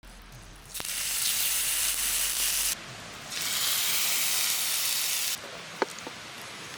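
Two bursts of steady hissing, each about two seconds long, starting and stopping abruptly, followed by a single sharp click.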